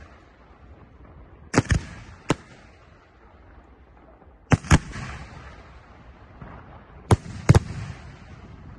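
Aerial firework shells bursting overhead: sharp bangs, mostly in close pairs, every two to three seconds, each followed by a short fading wash of noise.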